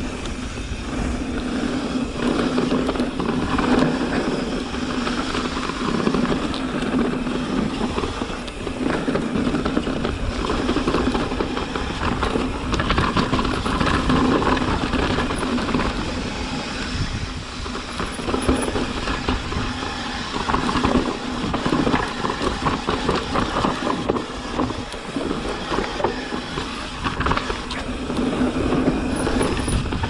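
Mountain bike riding down a rough dirt trail: steady tyre noise on the ground, with constant small clicks and rattles from the chain and frame over the bumps.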